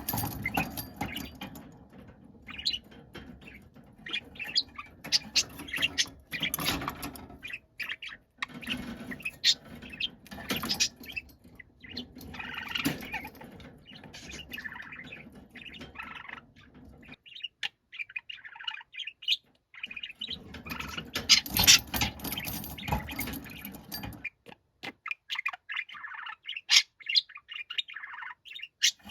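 Budgerigar calling noisily: a rapid string of sharp chirps and harsh squawks, thinning briefly about two-thirds of the way through.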